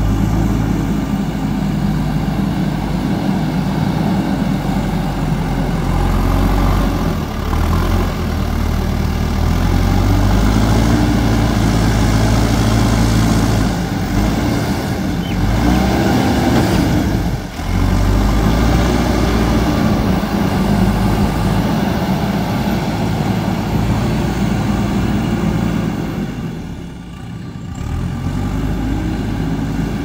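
JCB 3DX backhoe loader's diesel engine running under load, its revs rising and falling as the machine drives and carries soil in its front bucket. The sound dips briefly twice.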